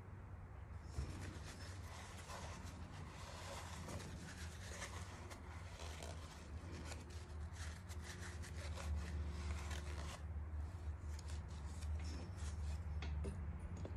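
Engine valves being handled and turned by hand against an aluminium cylinder head: a gritty rubbing and scraping with many small clicks. It starts about a second in and dies away near the end.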